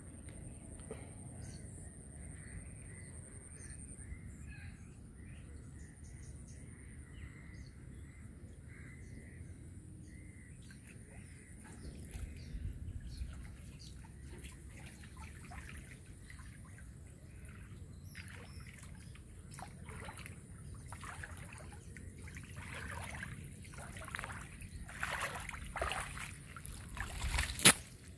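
Water splashing and sloshing in shallow floodwater as a man wades through it and works a cast net. The splashes come irregularly and grow busier in the second half, ending with one sharp knock. Faint bird chirps come through in the first part.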